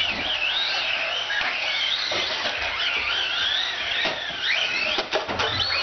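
Small electric RC short-course trucks (1/18-scale Team Associated SC18) racing, their motors and gears giving a high whine that rises and falls with throttle, with a few short sharp clicks.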